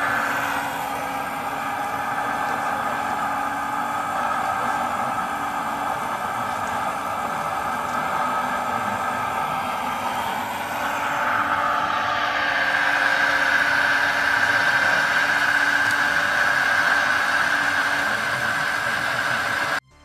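Radio-controlled Liebherr R 960 SME model excavator working, its motor and drive giving a steady mechanical whine that grows louder and higher from about eleven seconds in.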